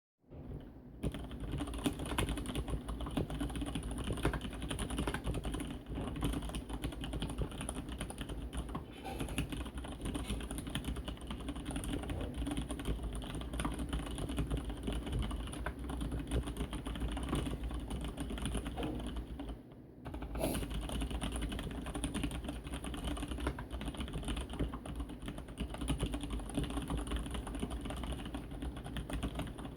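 Fast, continuous typing on a Leopold FC750R mechanical keyboard with brown (tactile) switches: a dense stream of key clacks that pauses briefly about two-thirds of the way through. The desk underneath resonates with the keystrokes, giving a hollow boom.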